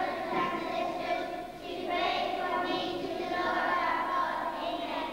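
Children's choir singing, in sustained phrases about two seconds long.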